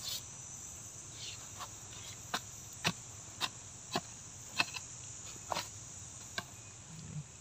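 A garden hoe chopping into dry, clumpy soil: a series of about nine sharp strikes, irregularly spaced half a second to a second apart. Under them runs a steady high drone of insects.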